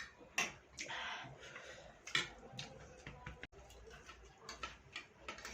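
Eating noises during a fast food challenge: scattered clicks and taps of utensils and mouth sounds, with a longer, noisier stretch about a second in.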